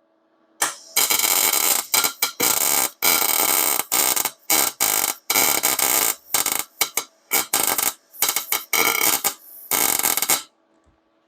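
MIG welder arc crackling on thin metal in a run of stop-start bursts, some a fraction of a second and some over a second long, as the trigger is pulled again and again; it stops a little before the end. The welder is on a low setting, 78 inches per minute wire feed at 15.5 volts, for thin stock.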